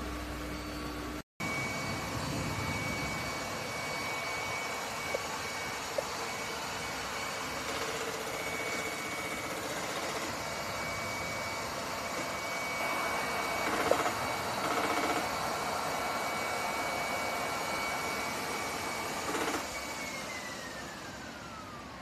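ILIFE Shinebot W450 robot mop running: a steady motor whir with a thin high whine, broken by a short cut about a second in and marked by a few brief knocks. Near the end the whine drops in pitch.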